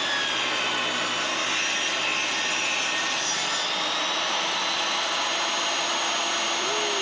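Portable jobsite table saw running and ripping a board lengthwise: a steady, even saw noise with a high motor whine.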